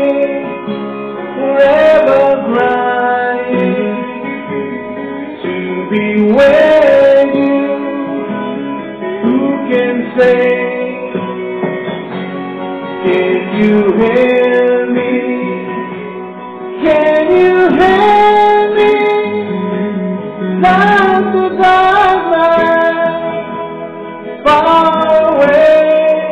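Backing music with guitar, and a man singing along into a handheld microphone, karaoke-style.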